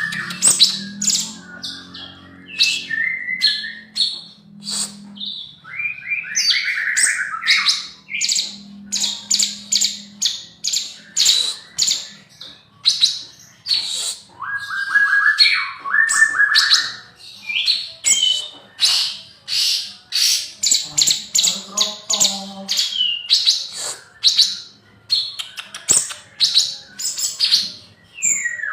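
Male spotted (trotol) cucak cungkok singing hard in a rapid, varied run of short high chirps and trills, broken now and then by lower slurred phrases; a young male in full song.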